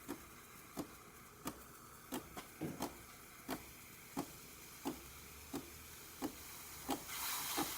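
DeLonghi Magnifica espresso machine ticking softly and evenly, about one and a half clicks a second, while it heats up to steam temperature. Near the end the steam wand starts to hiss.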